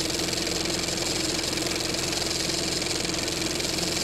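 Film projector sound effect: a steady mechanical whirr with a fast fine rattle, over hiss and a low hum.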